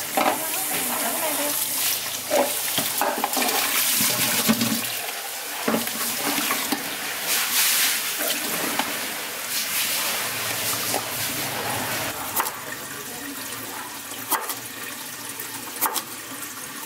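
Tap water running into a bowl and splashing in a stainless steel sink as food is rinsed, then draining off through a plastic colander; the water sound eases off in the second half, with a few sharp clicks near the end.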